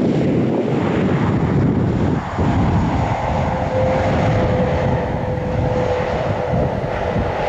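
Airliner engine noise: a loud, steady noise with a high, steady whine that comes in about three seconds in.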